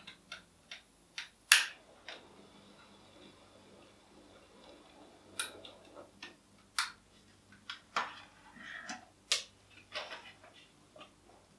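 A long-nosed utility lighter clicked again and again to light a solid fuel tablet: a series of sharp, irregularly spaced clicks, the loudest about one and a half seconds in.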